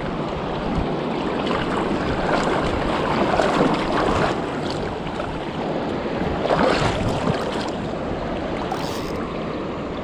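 Shallow river rapids rushing close to the microphone, a steady noise of running water that swells briefly about four seconds in and again near seven seconds.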